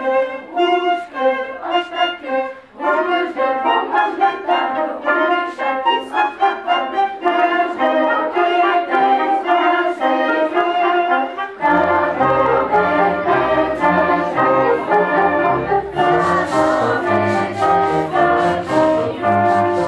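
A small orchestra of violins, viola, flute and cello playing a lively classical piece, notes changing in quick succession; about twelve seconds in a low bass line joins.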